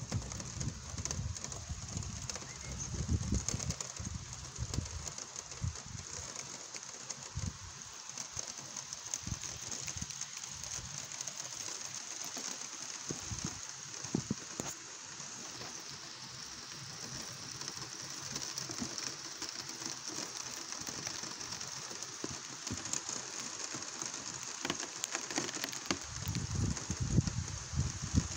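Steady thunderstorm rain falling, with many drops ticking on nearby surfaces. A low rumble is heard in the first few seconds and again near the end.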